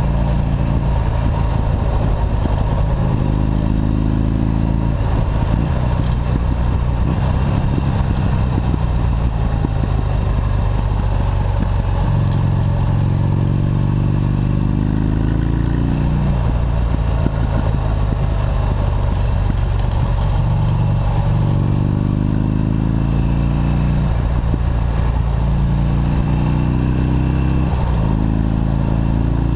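V-twin motorcycle engine riding along and accelerating several times, its pitch climbing in repeated runs before easing off, over a steady rush of wind and road noise.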